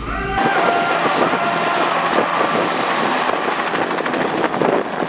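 Bell 206 JetRanger-type turbine helicopter running on the ground with its two-blade rotor turning: a steady turbine whine over rotor chop. A brief low rumble cuts off abruptly a fraction of a second in.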